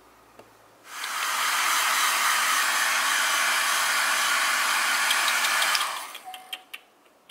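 Hair dryer switched on about a second in, blowing with a steady hiss for about five seconds, then switched off and dying away.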